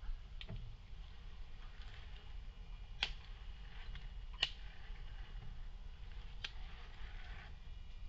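Radio-controlled scale crawler truck creeping over sticks and roots: a few sharp clicks or cracks, the loudest about three and four and a half seconds in, over a faint steady hiss.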